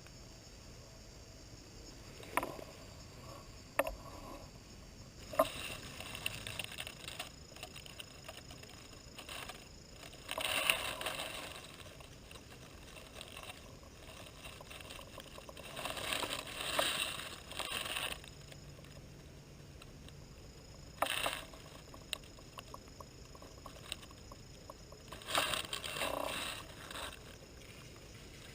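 Intermittent rustling and scraping, in bursts of a second or two, with a few sharp clicks near the start.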